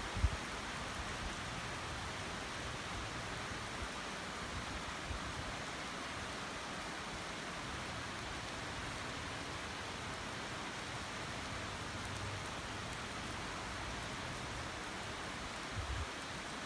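Heavy rain falling steadily, a constant even hiss. There is a brief low thump just after the start and a couple of softer low knocks near the end.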